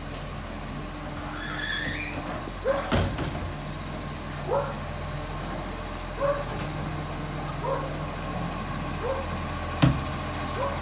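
Side-loading garbage truck's diesel engine running steadily as it works along the street, with two loud clunks, one about three seconds in and one near the end. Short rising chirps repeat every second or two over the engine.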